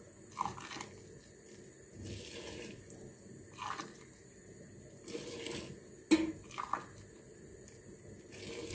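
Hot water poured from an aluminium jug into a glass mug and tipped into a stainless steel pot, in several short pours and splashes. There is a sharp clink about six seconds in.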